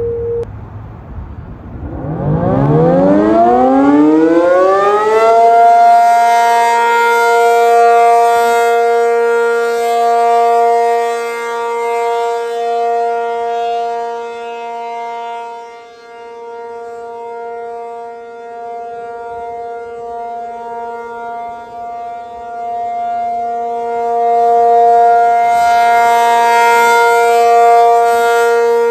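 ACA P50 outdoor tornado warning siren winding up, its pitch rising over about four seconds, then holding a steady alert tone. Its loudness slowly fades and then swells again.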